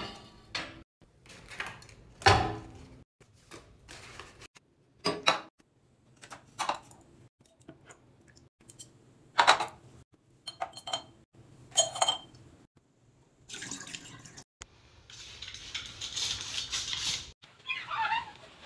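Glass items and a metal-framed mirrored tray clinking and tapping as they are set down on a marble counter: a string of separate sharp clicks and knocks a second or two apart. Near the end comes a couple of seconds of hissing, rustling noise.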